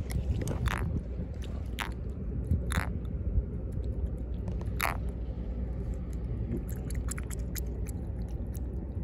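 Handling noises from a freshly landed fish being held in the hand: a handful of short crunching scrapes in the first five seconds, over a steady low rumble.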